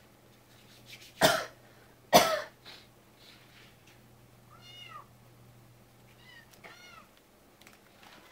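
Two loud, sharp bursts about a second apart, then a cat meowing twice in short, arched meows about two seconds apart.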